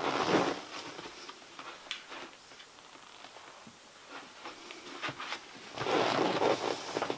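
Rustling and light handling noise as a bookshelf speaker is picked up and lifted into view, with faint clicks in the middle and a louder rustle about six seconds in.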